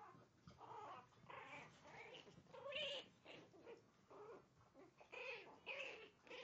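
Poodle puppies whining and yelping as they play, a string of short, faint, high-pitched cries.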